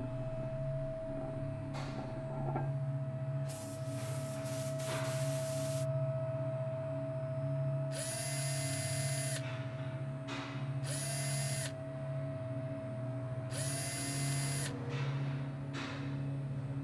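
Cordless drill-driver working on a machined billet-aluminium engine cover in three short runs, each motor whine rising in pitch as it spins up and then holding. A noisy rasping burst comes a few seconds earlier, and a steady hum lies underneath.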